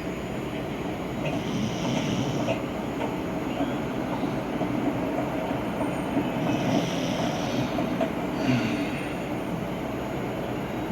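Dog snoring in its sleep: a steady low snore, with a few hissier breaths standing out every few seconds.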